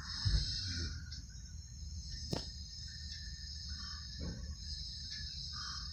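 Crickets chirring steadily in a high, even drone, with a single sharp click a little over two seconds in.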